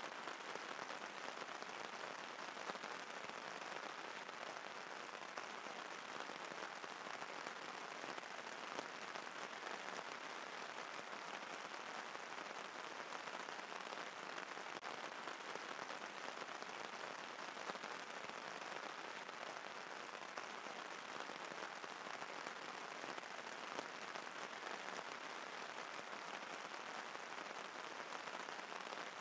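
Steady rain falling, an even hiss with a few faint taps of drops now and then.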